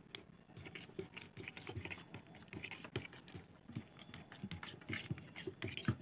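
Steel spoon scraping and clicking against a stainless steel bowl as it stirs a thick glue-and-cream mixture, in quick, irregular strokes.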